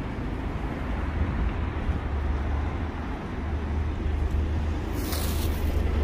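London double-decker bus engine running as the bus pulls past close by, over steady road-traffic noise, with a short hiss about five seconds in.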